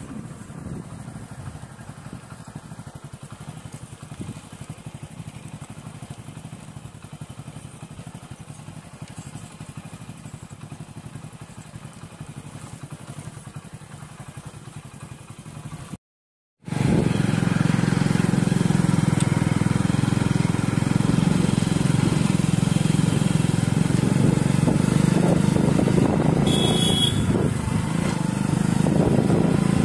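Motorcycle riding on a rough dirt hill road: a steady engine and road rumble with wind noise. After a brief cut about 16 seconds in, it is much louder. A short high-pitched sound comes near the end.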